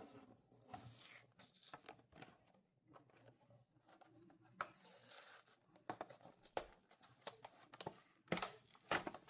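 Die-cast toy car packaging being opened by hand: faint tearing and rustling of card and plastic with scattered small clicks, and a longer tear about five seconds in.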